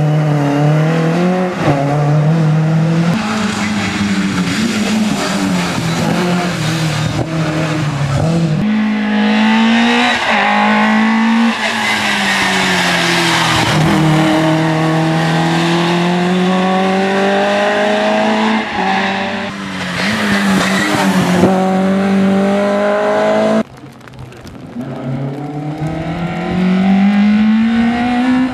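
Škoda Felicia rally car's engine revving hard, its pitch climbing through each gear and dropping at the changes and lifts as the car passes. The sound cuts from one pass to the next; in the last, about three-quarters of the way in, it starts quiet and swells as the car approaches.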